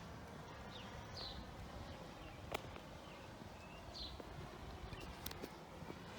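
Outdoor ambience: a small bird giving short, high, falling chirps every second or few, over a steady low rumble, with a sharp click about halfway through.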